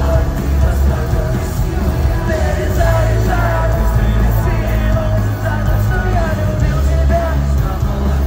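Rock band playing live over an arena PA: heavy bass and drums with electric guitar and a sung melody.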